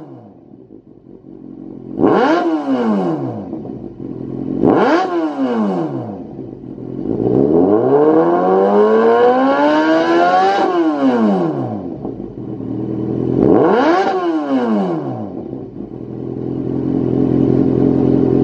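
Kawasaki Z800's inline-four engine, breathing through an aftermarket Lextek YP4 stainless silencer, revved on the stand: it idles, is blipped sharply twice, climbs more slowly to higher revs and drops back, blips once more, then runs steadily near the end.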